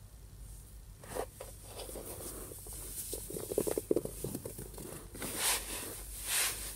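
Hands squeezing and crumbling clumps of homemade fake snow made from bicarbonate of soda and white hair conditioner: soft, uneven crunching and crackling as the clumps break apart. Near the end come two short brushing swishes as the snow is spread across the tray.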